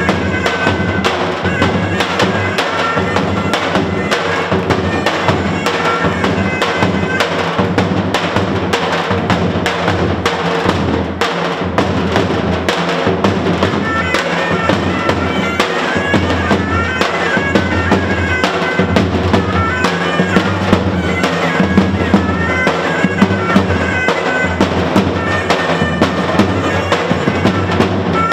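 Albanian folk dance music: lodra, large double-headed drums, beating a steady driving rhythm under a reedy, bagpipe-like wind melody.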